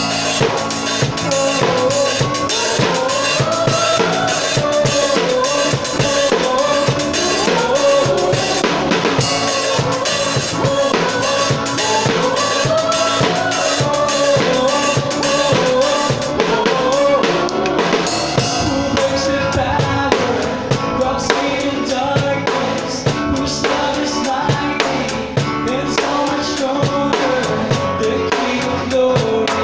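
A drum kit played close-up in a steady beat, with kick, snare and cymbal hits, over a live band playing a song with a melody.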